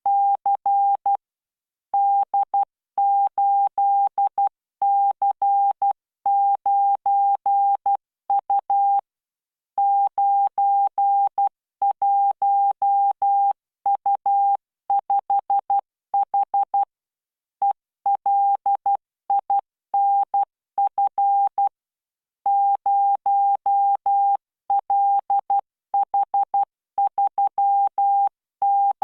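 Morse code sent at 12 words per minute by the Learning Morse CW training software. A single steady tone is keyed on and off in dots and dashes, with longer pauses between words.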